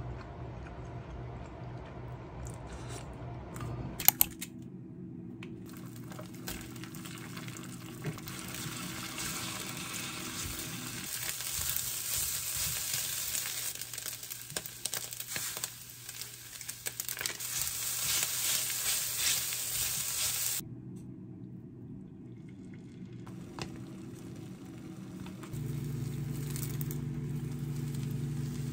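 Egg fried rice sizzling in a nonstick frying pan on an induction hob, loudest through the middle and cutting off suddenly about twenty-one seconds in. Near the end a thin egg sheet frying in a small pan. Two sharp clicks about four seconds in.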